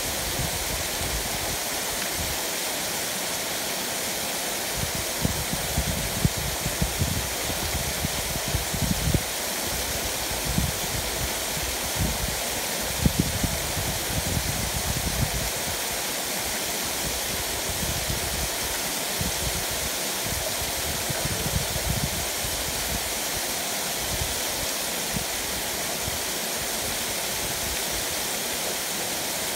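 Thin waterfall pouring down a rock face and splashing onto the rocks below: a steady rushing hiss of falling water, with irregular low rumbles coming and going through the middle.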